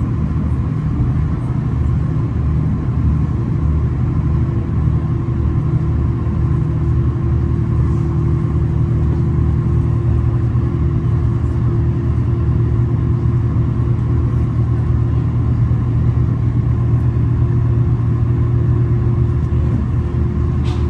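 V/Line diesel train heard from inside the carriage while travelling: a steady engine drone and rumble with a constant hum, holding an even pace without speeding up or slowing.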